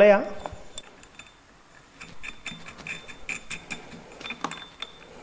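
Light metallic clicking and ticking as a Stage6 half pulley is fitted by hand onto the crankshaft of a Minarelli horizontal scooter engine's variator and turned. The clicks come irregularly, several a second, from about two seconds in.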